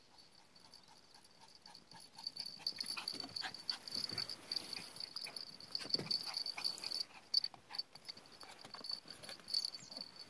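A Pungsan puppy and a small tan dog play-fighting, making many short dog noises and whimpers that come thick and fast from about two seconds in.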